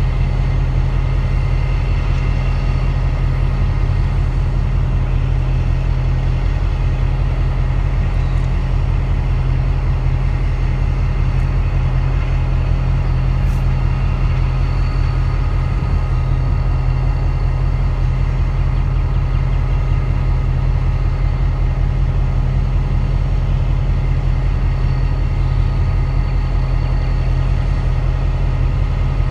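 EMD diesel locomotives idling: a steady, deep engine rumble with a fast, even pulse that does not change.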